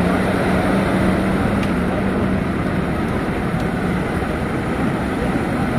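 Heavy diesel engines of buses and a truck idling on a ferry deck: a steady low rumble with a hum that fades out about two seconds in.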